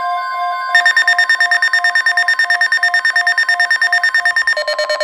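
Emergency alert tones from weather-alert receivers: a steady long tone with beeping alarms over it. About a second in, the beeping turns much faster, around ten beeps a second, and near the end it shifts to a lower pitch.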